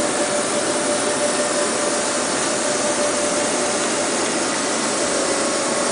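A 1983 Skoda W200H NC horizontal boring mill running under power, giving a steady whirring noise with a constant whine held at one pitch.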